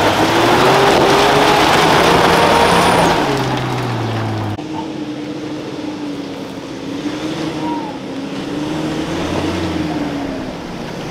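80 Series Toyota LandCruiser's engine working under load and revving up and down as the truck crawls up rock ledges, its pitch rising and falling. About four and a half seconds in, it cuts abruptly to a quieter engine note from another four-wheel drive climbing the track, its pitch wavering gently.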